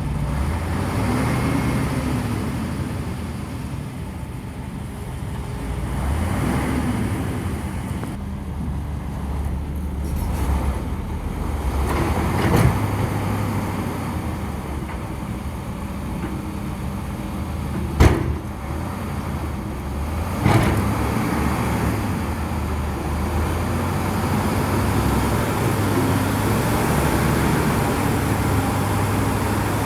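Heavy diesel engines of an excavator and a ten-wheel dump truck running and labouring, their rumble swelling and easing as the excavator pushes the stuck truck. Three sharp knocks, the loudest one about two-thirds of the way through.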